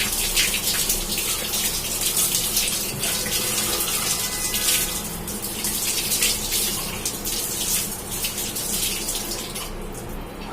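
Tap water running and splashing as a toilet tank's ball cock fill valve is rinsed clean of cleaner and mud under the flow. The splashing fades near the end.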